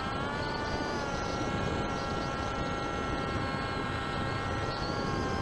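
FPV model aircraft's motor and propeller whining steadily from on board, dipping slightly in pitch about a second in and again near the end, over a constant rush of wind noise.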